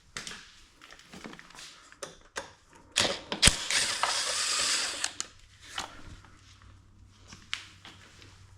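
Hand ratchet wrench undoing bolts that hold a plastic cover, its pawl clicking in short runs. The loudest part is a longer run of fast clicking from about three to five seconds in.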